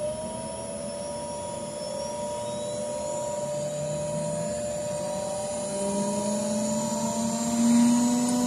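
Eppendorf 5424 R refrigerated microcentrifuge spinning up toward 15,000 rpm. Its motor whine rises in pitch and grows steadily louder, levelling off near the end as the rotor nears full speed.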